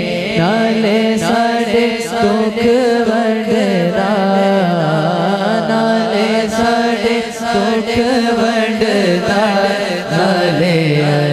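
Male voice singing a Punjabi naat through a microphone in long, ornamented held notes that bend up and down, over a steady low drone.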